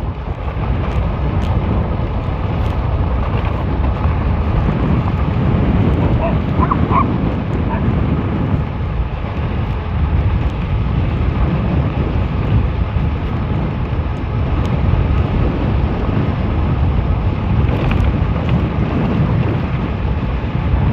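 Steady, loud wind noise buffeting a helmet-mounted camera microphone on a fast-moving e-bike.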